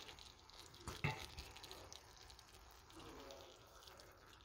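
Chicken legs in ketchup and soy sauce faintly sizzling in a pan on low heat, with one knock about a second in as a wooden spatula moves the pieces.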